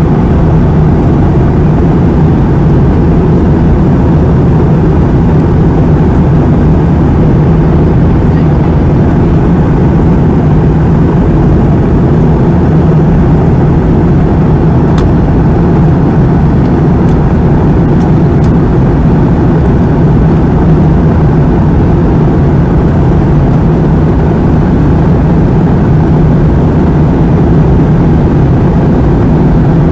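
Steady cabin noise inside a Boeing 717 airliner during descent: a constant rush of airflow over a low, even drone from its tail-mounted Rolls-Royce BR715 turbofan engines, with a few faint ticks from the cabin.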